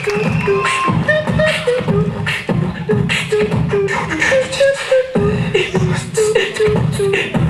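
Live human beatboxing into a cupped microphone: a steady, fast rhythm of kick, snare and hi-hat sounds made with the mouth, with a short pitched melody line carried over the beat.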